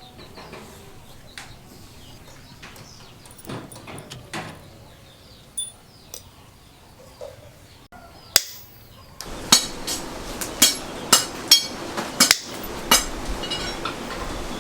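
Metal striking metal: a single sharp ringing strike about eight seconds in, then a run of sharp clinking strikes about two a second. Before the strikes there are only faint scattered clicks.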